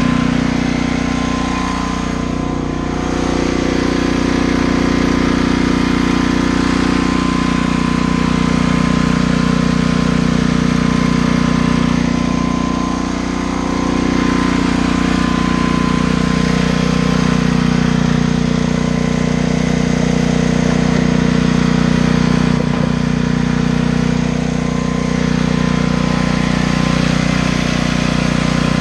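Dayton portable generator's engine running steadily at a constant speed, burning off the last of the old gasoline in its nearly empty tank.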